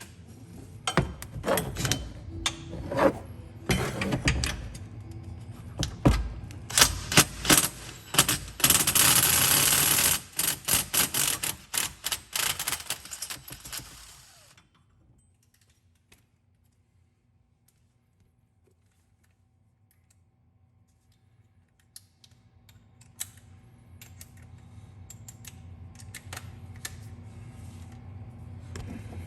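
Metal exhaust parts knocking, clanking and scraping as the stock exhaust section is worked loose, with a dense scraping rattle around nine to ten seconds in. The noise stops about halfway through, leaving near silence, and faint scattered clicks come back near the end.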